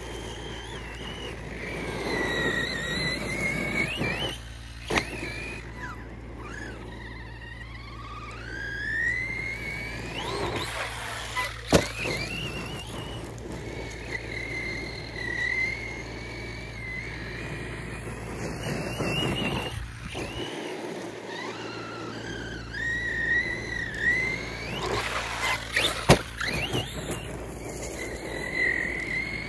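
Team Associated Rival MT8 RC monster truck on a 6S battery, its brushless motor whining up and down in pitch with the throttle. Three sharp knocks come through, likely landings or impacts of the truck.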